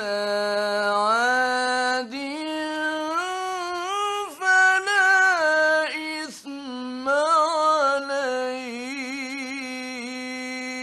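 A man reciting the Quran in the melodic mujawwad style, his voice unaccompanied. He draws out long notes, slides between them with ornamental turns, and ends on a long, wavering held note. It is an early-1960s Egyptian radio recording.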